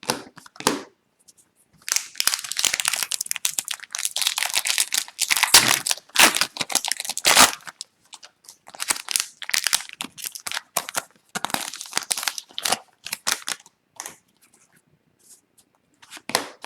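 Trading card pack wrapper being crinkled and torn, with a dense stretch of rustling and tearing in the first half, then intermittent crackles.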